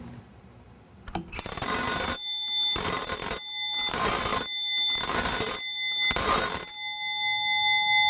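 Brass key-turned mechanical doorbell rung five times: each turn of the key drives the clapper against the bell in a rapid rattling ring. After the last ring the bell's tones ring on and fade.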